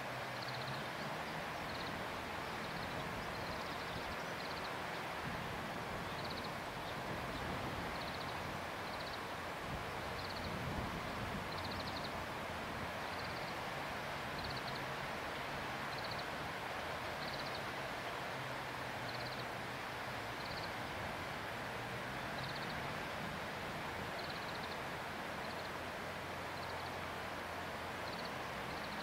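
Steady outdoor background noise with a short, high, pulsed chirp from a calling animal, repeating about once every second or so.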